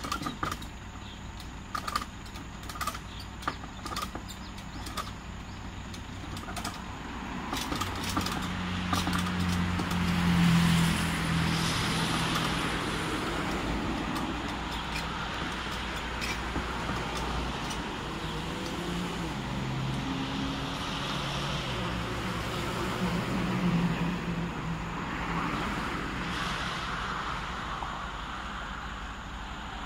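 Vehicles passing on the road: a heavy engine's rumble swells and fades, loudest about ten seconds in, and a second vehicle passes later on. Over the first several seconds there is a run of sharp clicks and knocks.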